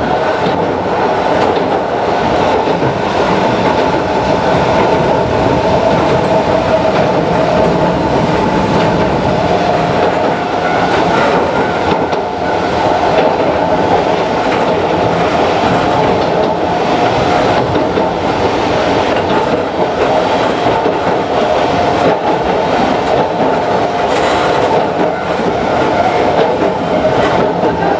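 Kintetsu Utsube Line narrow-gauge (762 mm) electric train running, heard from inside the front car: a steady rumble of wheels on rail with clicks over the rail joints. A steady whine from its nose-suspended traction motors and gears comes and goes.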